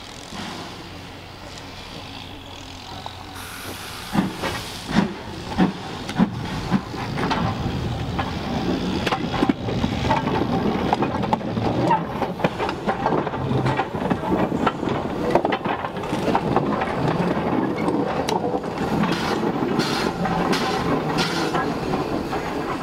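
Steam locomotive setting off with hiss: separate exhaust beats begin about four seconds in, come closer together and merge into a steady, louder run of exhaust and train noise.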